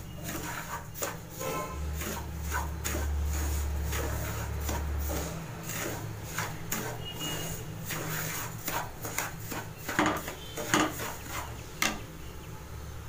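A wooden spatula scrapes and stirs semolina around a non-stick frying pan as it dry-roasts in ghee over medium heat. It makes irregular gritty scrapes and light taps against the pan over a low steady hum.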